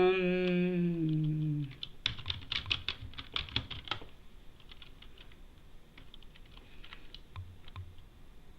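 Computer keyboard typing: a quick run of keystrokes, then scattered single key presses. At the start, a drawn-out vocal hum, falling in pitch, lasting about a second and a half.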